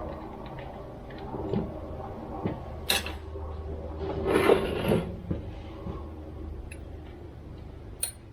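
Tools and small chainsaw parts being handled during reassembly: light clicks and knocks, a sharp click about three seconds in and another near the end, and a short scraping rattle, the loudest sound, around four to five seconds in, over a low steady hum.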